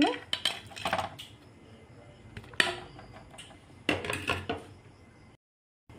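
Raw chicken pieces tipped from a plate into a steel bowl: scattered soft knocks and clinks of the plate and pieces against the metal, with a brief dead gap near the end.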